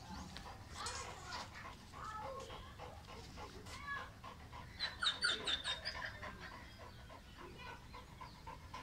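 Dogue de Bordeaux panting steadily with its tongue out. About five seconds in there is a quick run of high chirps.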